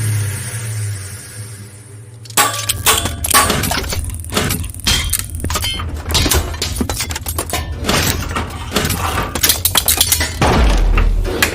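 Sound-designed Optimus Prime transformation effect in the style of the live-action Transformers films. A fading hiss over a low steady hum gives way, about two seconds in, to a dense run of crunchy metallic clicks, clanks and rattles, with a deep low thump near the end.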